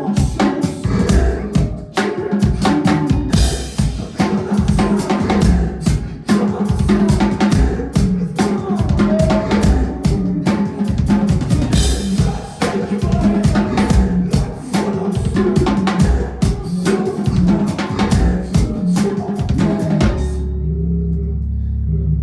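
Live band music heard through a concert PA: fast, dense drum-kit playing with kick, snare and rimshots over a low bass line. About twenty seconds in the drums stop, leaving a steady low bass drone with a pulsing tone above it.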